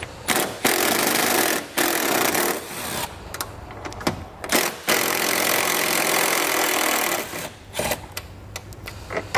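Cordless power driver with a 10 mm socket running in a series of bursts, unscrewing the bolts that hold the upper bumper fascia to the radiator core support. The longest run comes a little past the middle, followed by several short blips near the end.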